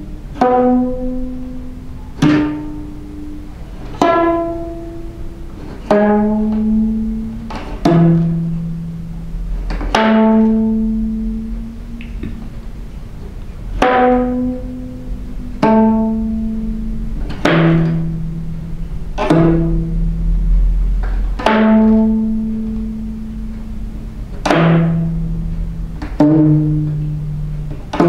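Geomungo, the six-string Korean zither, played solo with a bamboo plucking stick. Slow single notes come about every one and a half to two seconds. Each is struck with a sharp attack and left to ring and fade.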